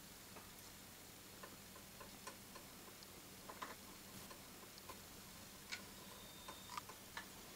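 Faint, irregular little ticks and clicks as a wooden stick dabs patina solution onto a small warmed metal cross, more frequent in the second half.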